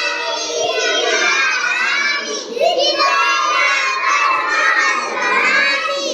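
A child singing a Hindi nursery rhyme in a high, sing-song voice with short pauses between phrases.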